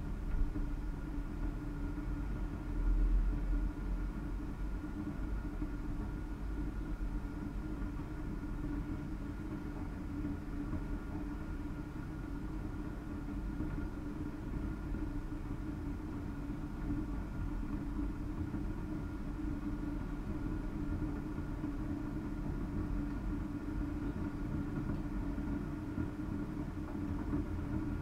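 Kaffee Boy K500 coffee machine heating its water towards the boil: a steady low rumble with a steady hum over it, swelling briefly about three seconds in.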